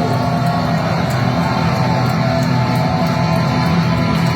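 Loud, distorted heavy rock on electric guitar: the band making noise on cue during a sound check.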